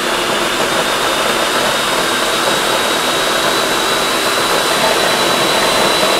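Electric food processor running at full speed, puréeing black beans and tahini into hummus: a steady motor whine over the churning of the thick paste.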